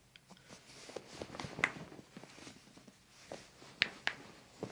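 Handling noise as a patient's toe is gripped and pulled in a chiropractic traction: soft rubbing of hands on skin with a few short sharp clicks, two louder ones about a second and a half and nearly four seconds in.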